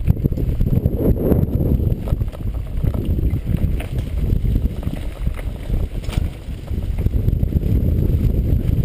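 Wind and motion rumble buffeting an action camera's microphone on a downhill descent, a steady low noise with a few sharp clicks and rattles, one a little after a second in and another around six seconds.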